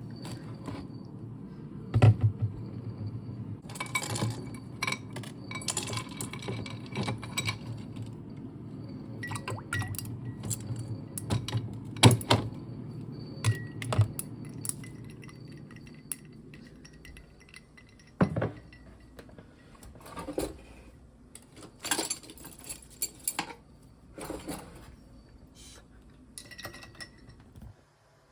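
Small glass and dishware items clinking and knocking against each other and against a shelf as they are handled and set down, many separate clinks. A steady low hum runs underneath and fades out a little past halfway.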